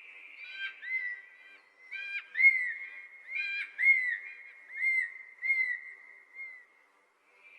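A bird whistling a series of short, arched notes, about two a second, mixed with a few sharper calls early on, the notes growing fainter toward the end.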